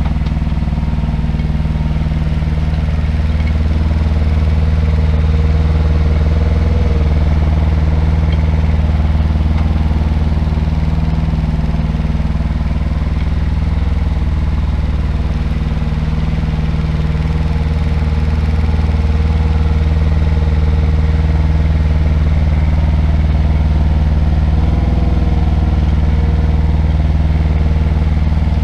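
IHI 9VX-3 mini excavator's diesel engine running steadily while the machine grades dirt and tracks, its level swelling slightly a few times as the load changes.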